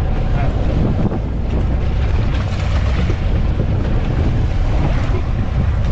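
Wind buffeting the microphone on a boat at sea: a steady, loud low rumble with the wash of water underneath.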